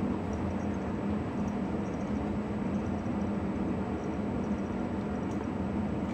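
Steady low hum and rumble, unchanging throughout, with a few faint light ticks scattered over it.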